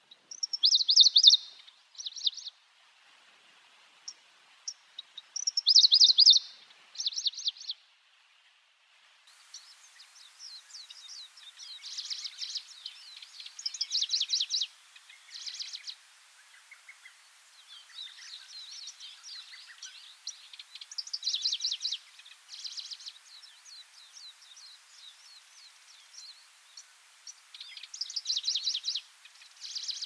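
Styan's grasshopper-warbler singing: short, high-pitched phrases of rapid, closely spaced notes, each about a second long, repeated every few seconds with pauses between them.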